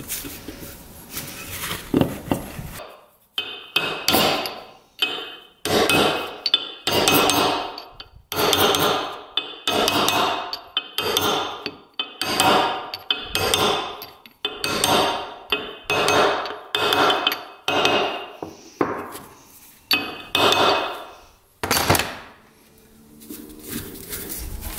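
A hammer strikes a metal driver about twenty times in a steady rhythm, roughly once a second. Each blow rings briefly and metallically as it drives a new bearing into an ATV's front differential housing. The blows stop shortly before the end.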